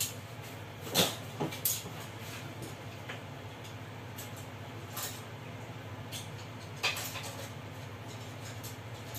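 Plates and spoons being set down, with a few scattered clinks and knocks over a steady low hum.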